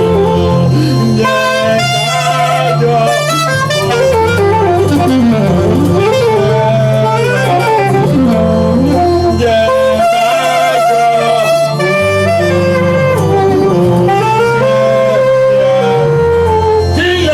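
Instrumental music: a saxophone-like lead melody with wavering vibrato over a steady bass line.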